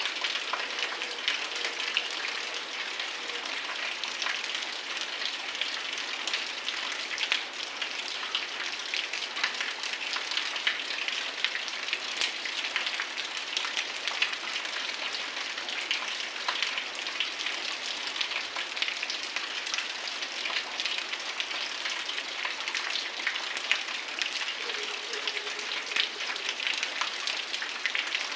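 Heavy rain falling steadily on surfaces, a dense even hiss full of individual drop ticks, with no thunder.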